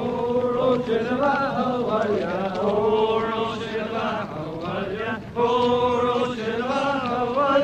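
A voice singing a slow song with long, wavering held notes, pausing briefly about five seconds in before going on.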